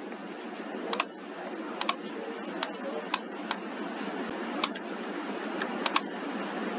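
Computer mouse clicking about ten times, several of the clicks in quick pairs, over a steady microphone hiss.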